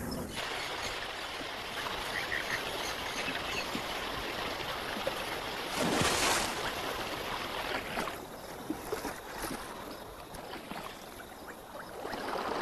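Lake water lapping and splashing against shoreline rocks, with one louder splash about six seconds in, then quieter lapping with small splashes.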